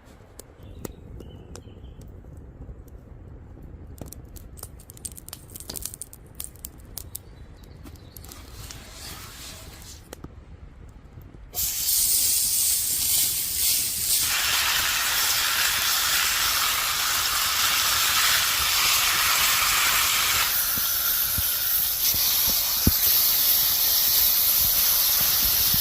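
Faint scattered clicks and rustles, then about halfway through a loud, steady hiss starts suddenly and keeps going.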